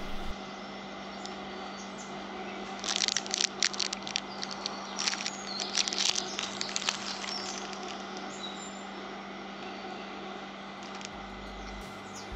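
Quiet ambience with a steady low hum and two short spells of crackling rustles, about three seconds in and again around five to seven seconds in.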